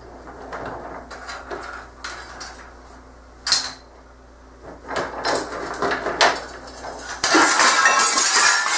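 Heavy steel chain clinking and rattling as it is handled against a steel rig, with a sharp metal clank about three and a half seconds in and a loud, continuous chain clatter from about seven seconds on.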